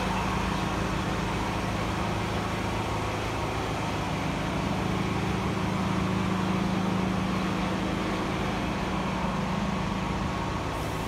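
Steady urban background hum: a constant low mechanical drone with no distinct events.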